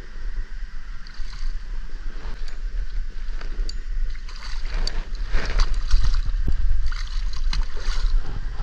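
Wind rumbling on the microphone, then from about four seconds in a hooked spotted seatrout thrashing and splashing at the surface beside the kayak, in irregular bursts.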